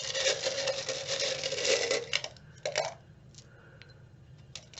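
Small metal charms rattling and clinking together for about two seconds, then a few light clicks as they are set down on a cloth.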